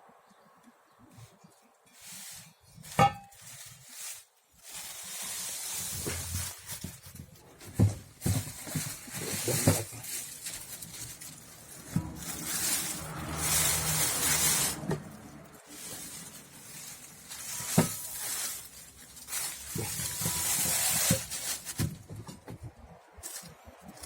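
Packaging being handled while a motorcycle wheel is unwrapped: long stretches of rustling and crinkling, broken by a few sharp knocks and clinks.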